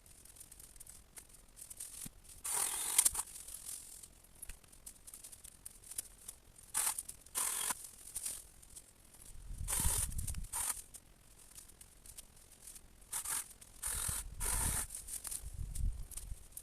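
Irregular short bursts of cutting, snapping and rustling as branches are cut out of a large viburnum shrub, some with a low thud beneath them.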